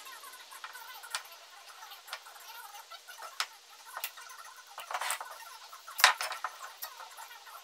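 Glue brush scratching on redwood and the wood pieces being handled on a workbench: scattered small clicks and knocks, the sharpest knock about six seconds in.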